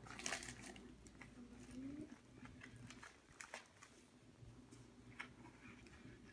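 Quiet biting and chewing into a Naked Chicken Chalupa's fried-chicken shell: a few faint crunches and clicks scattered over low room tone.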